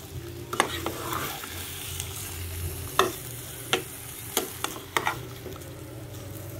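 Metal spatula stirring chicken pieces being sautéed in a pot, with a faint sizzle under it and several sharp knocks of the spatula against the pot.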